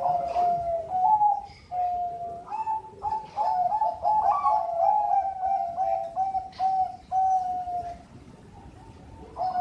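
Zebra dove (perkutut) cooing in its song: phrases of clear, mid-pitched coos, with a quick stuttering run of notes in the middle and a longer held note before a short pause, then the song starting again near the end.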